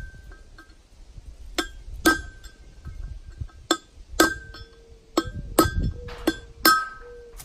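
Hammer striking a steel punch to drive a new bearing race into a trailer wheel hub: about eight sharp metallic strikes, mostly in pairs about half a second apart, each ringing briefly. The race is being seated until it bottoms out on the shoulder inside the hub.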